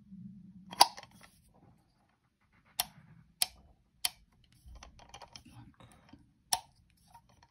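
Grind-adjustment wheel of a Comandante C40 Mk4 hand coffee grinder being turned toward the zero setting, clicking through its detents: about five sharp, separate clicks. Between them, fingers rub and handle the metal grinder body.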